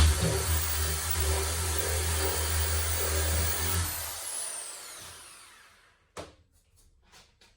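Power drill with an 8 mm bit boring through a wooden door, running steadily, then released about four seconds in and winding down with a falling whine. A sharp click follows about two seconds later.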